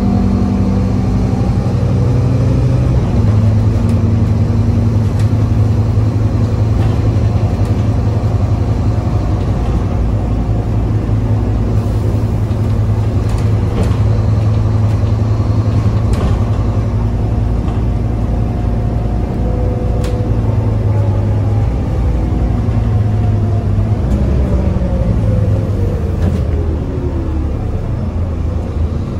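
Scania OmniCity diesel bus heard from inside the passenger saloon, running along with a steady low engine drone and a thin drivetrain whine. In the last third the whine falls in pitch as the bus slows.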